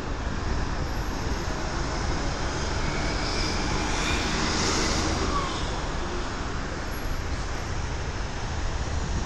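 Steady traffic noise from a busy multi-lane road, swelling about three to five seconds in as a bus passes close by, then settling back.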